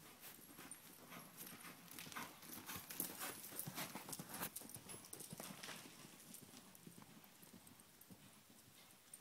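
Hoofbeats of a ridden horse moving on soft arena dirt, a quick run of strikes that grows louder as the horse passes close, about three to five seconds in, then fades as it moves away.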